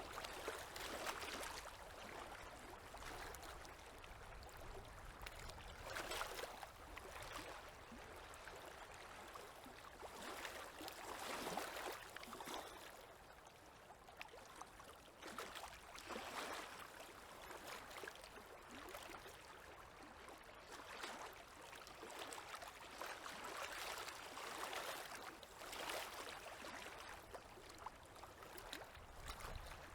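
Faint small waves lapping at a river's edge, a watery wash that swells and fades every few seconds.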